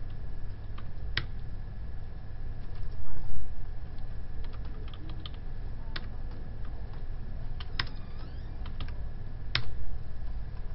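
Computer keyboard being typed on in short, scattered presses, with a few sharper key clicks standing out, over a low steady hum.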